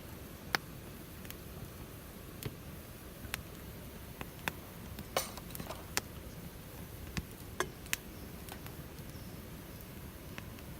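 Wood fire crackling, with irregular sharp pops and snaps over a low steady hiss of burning.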